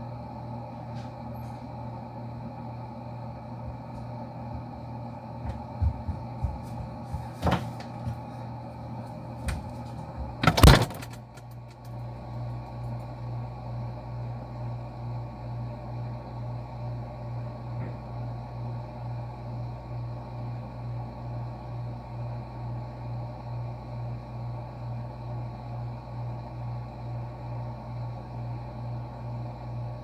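A few knocks and clatters, then a refrigerator door shuts with a loud thud about ten seconds in. After that, a steady low hum with a slight regular pulse: the fridge running, heard from inside the closed compartment.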